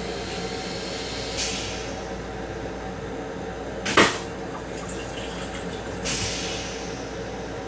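Steady hum of an M7 commuter railcar heard inside its small restroom. Short hisses come about a second and a half in and again near six seconds, with a single sharp knock about four seconds in.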